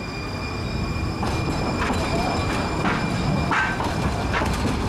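MUNI Metro light-rail streetcar running through a track junction: a steady high electric whine over a rumble that grows louder, then from about a second in a string of wheel knocks over the rail joints and crossings, roughly every half second, with short wheel squeals.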